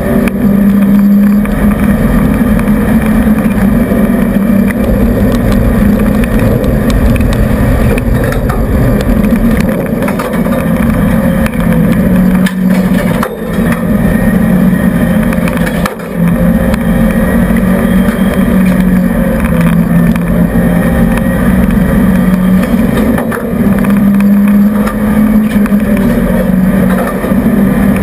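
Renault 5 GT Turbo rally car's turbocharged four-cylinder engine, heard from inside the cabin, running hard at high revs. Its pitch steps up and down as the car accelerates and slows, with brief lifts about 13 and 16 seconds in.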